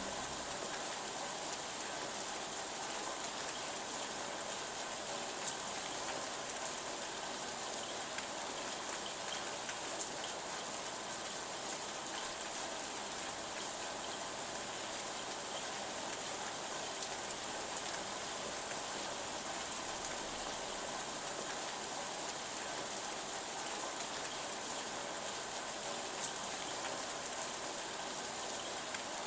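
Steady rain falling, an even hiss with occasional louder individual drops ticking.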